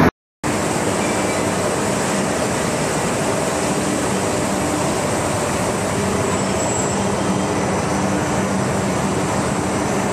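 Particleboard production-line machinery running steadily: an even rushing noise with a faint hum under it. The sound cuts out briefly right at the start, then comes back.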